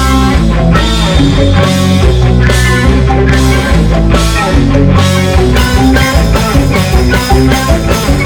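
Rock band playing an instrumental passage: electric guitar and bass holding chords over drums, with cymbal crashes about once a second.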